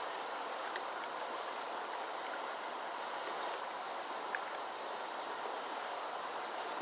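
Steady rush of a flooded creek's flowing water, with a faint click about four seconds in.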